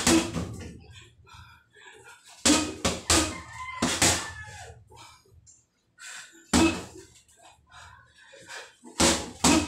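Boxing gloves thudding into a heavy punching bag in short combinations, a few seconds apart. Between the punches a rooster crows in the background, about three seconds in.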